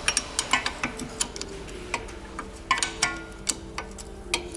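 Irregular sharp metallic clicks and clinks, several a second, from a wrench working the lower mounting bolt of a Volvo XC90's rear wheel hub out a little at a time.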